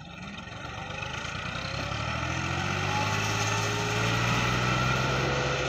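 Massey Ferguson 375 tractor's four-cylinder diesel engine working hard while hauling an overloaded trolley up a climb. Its steady note grows louder and rises slightly in pitch as it approaches.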